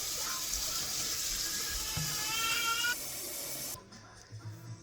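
Water running from a kitchen tap into a container, a steady rush whose tone rises as the vessel fills, then cuts off about three-quarters of the way through.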